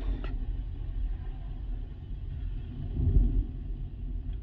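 Low rumble of an open-pit coal-mine blast rolling and fading, swelling again about three seconds in.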